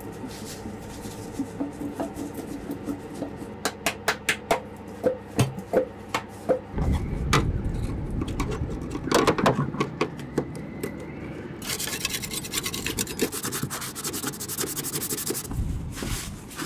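Clicks and taps of plastic manual bilge pump parts being handled and fitted together. After a cut, a low rumble comes in, and later a few seconds of steady hissing rubbing as a cloth scrubs a plastic hull fitting.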